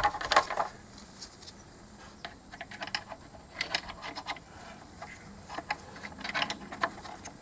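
Scattered small clicks and knocks of plastic parts being handled as Fel-Pro intake manifold gaskets are snapped into their grooves on the plastic intake manifold, in short clusters every second or so.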